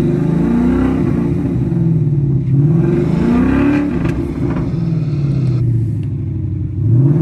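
Ford Mustang GT's 5.0-litre V8 with long-tube headers, revved in short throttle blips while parked, heard from inside the cabin. The engine pitch climbs and falls about twice, with another rev starting near the end, and the exhaust gives a little popping as the revs drop.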